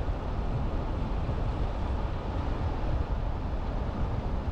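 Steady road and wind noise of a vehicle driving at low speed, a continuous low rumble without any distinct events.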